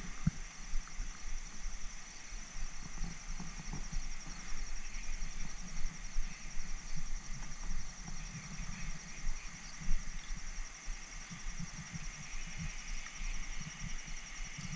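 Spinning reel being cranked to bring in a hooked fish, with faint irregular handling knocks and rustle, under a steady high-pitched hum.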